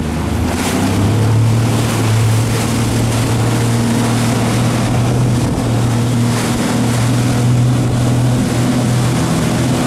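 Tow motorboat's engine running under load, picking up about a second in and then holding steady, over the rushing of the wake and spray and wind on the microphone.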